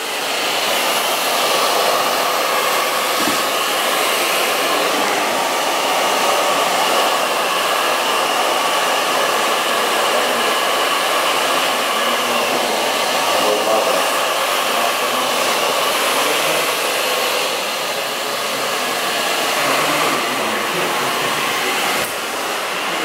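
Hand-held blow dryer running steadily, a loud rush of air with a faint motor whine, while it dries and sets gel in hair; the level dips slightly twice near the end.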